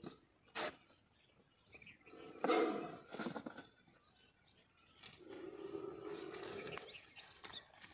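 A plastic jar with a cobra inside is being handled: a sharp click, then a louder scraping rustle about two and a half seconds in, and a steadier low rustle near the end.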